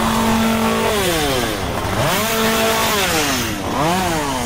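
Chainsaw engine running at a high steady pitch, then revved down and back up several times.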